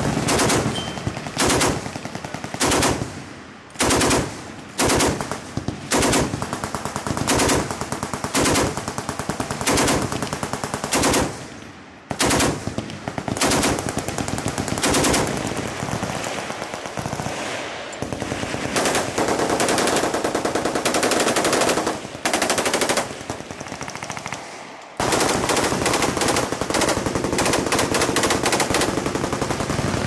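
Several machine guns firing bursts of fully automatic fire, overlapping one another. Near the end the firing becomes one long unbroken stretch.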